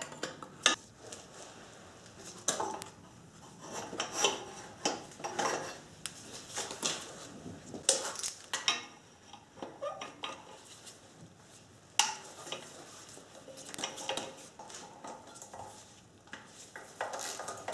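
Socket ratchet clicking in short runs and loose metal parts clinking as bolts are undone on an engine's fuel line and intake manifold fittings. One sharp metallic clack about twelve seconds in is the loudest.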